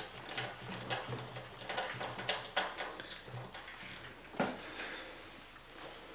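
Irregular light clicks and scrapes of screws and metal parts being worked into a computer case, with a sharper knock a little past the middle.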